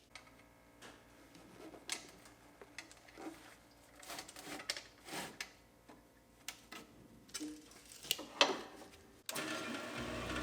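Faint, scattered clicks and knocks of workshop handling, with metal parts being moved and set down. About nine seconds in, louder background music starts abruptly.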